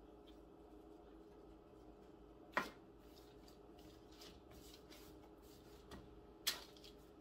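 Hands working bread dough on a parchment-lined baking sheet: two sharp thuds, about two and a half seconds in and again near the end, as the dough is patted and set down, with faint rustling of the parchment in between. A steady low hum runs underneath.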